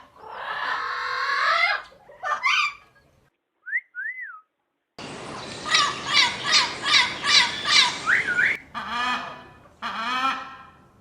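Parrot calling: a long harsh squawk and a few shorter calls, two short whistled notes, then a run of about seven quick repeated calls, a whistled rising note, and a few falling calls near the end.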